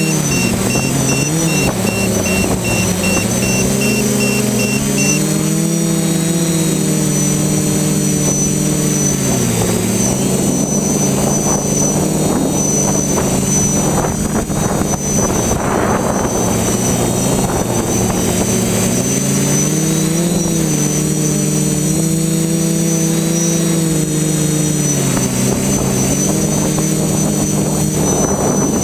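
Team BlackSheep (TBS) FPV multirotor's electric motors and propellers buzzing close to its onboard GoPro in flight. The pitch rises and falls with the throttle, with a steady high whine above it and a rush of air for a couple of seconds around the middle.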